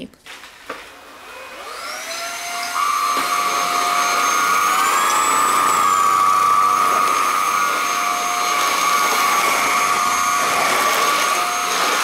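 RAWMID Modern RMV-01 cordless stick vacuum's motor spinning up about a second in, then running with a steady high whine as it sucks up short dog hair. Midway its pitch briefly rises and settles back, the automatic mode raising suction as it meets more dirt.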